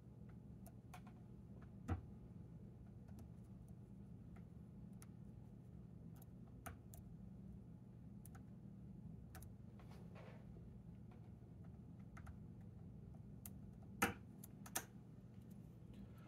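Faint, irregular light metallic clicks of a hook pick lifting and setting the pins of a Chicago Lock Co tubular lock held under tension, with a few sharper clicks about two seconds in and again near the end.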